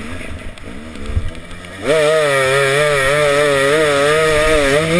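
Enduro motorcycle engine heard from on board: lower and uneven at first, then the throttle opens about two seconds in and the engine holds high, steady revs, its pitch wavering slightly a few times a second.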